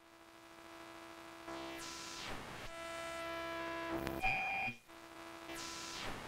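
Film score sound design: a slowly swelling electronic drone of held tones, with two falling whooshes and a short high electronic beep about four seconds in.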